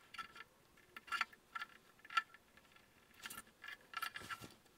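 Faint small clicks and light metallic rattles of an M3 screw and washers being turned in with a hex key to fix a V-slot bearing to a 3D-printed plastic part, in scattered bunches of ticks.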